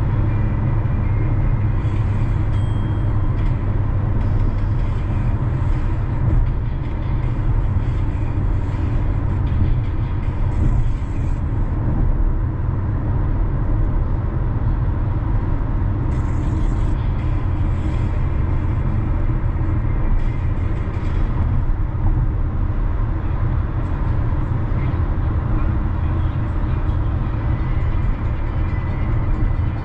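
Car driving on city roads: a steady low rumble of engine and tyres, with a brief higher hiss now and then.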